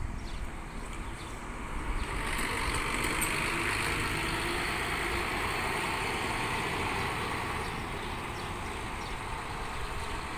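Three-axle intercity coach's diesel engine pulling away, swelling about two seconds in as it accelerates up the street and easing off a little near the end.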